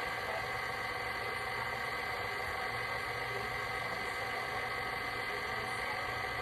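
Electric stand mixer running at a steady speed, an even motor hum and whir as it beats the cake batter.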